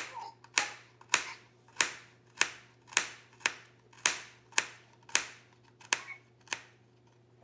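Kitchen knife chopping on a cutting board while mincing garlic, a sharp tap about twice a second in a steady rhythm.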